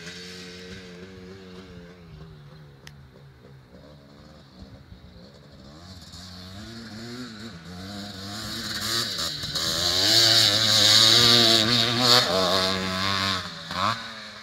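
1982 Maico 490's single-cylinder two-stroke engine being ridden, its pitch rising and falling with the throttle. Fainter at first, it grows louder as the bike comes closer, is loudest about ten to twelve seconds in, then drops away near the end.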